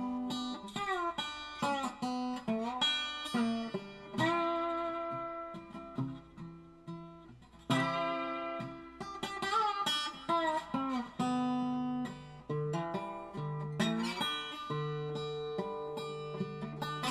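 Background music: acoustic guitar playing plucked and strummed notes, some of them sliding in pitch.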